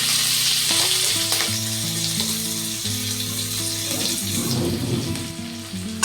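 Garlic and chillies sizzling in hot oil in a pan, loudest at first and slowly dying down, over background music.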